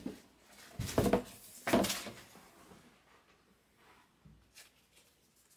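Two short bursts of knocking and rustling about one and two seconds in, then a few faint taps: objects being handled.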